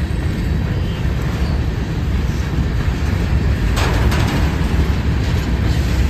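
Covered hopper cars of a freight train rolling past, a steady low rumble of steel wheels on rail, with a brief louder rush of noise about four seconds in.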